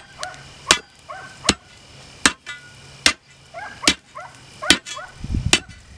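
A forged steel digging bar striking limestone ground in a steady rhythm, about seven sharp strikes less than a second apart, as the freshly made bar is tested. A dog makes short high calls between strikes.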